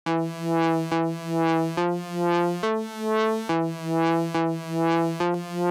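Electronic background music: sustained synthesizer chords that change a little under once a second, each swelling up and fading, with no drums yet.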